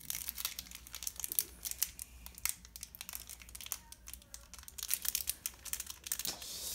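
Foil wrapper of a Pokémon trading card booster pack crinkling as it is handled and torn open by hand: a rapid, irregular crackle of many small crinkles.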